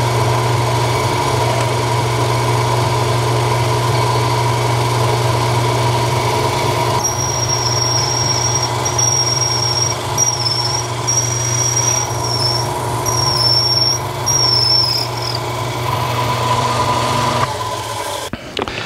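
Milling machine spindle running with a twist drill boring into 3/4-inch stainless steel round stock. From about seven seconds in, the bit squeals as it cuts, in several short stretches with brief breaks between them. The machine stops near the end.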